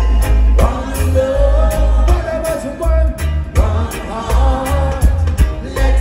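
Live reggae band playing: a heavy pulsing bass line, drums with cymbal hits, and electric guitar, with a male lead vocal singing long held lines over it.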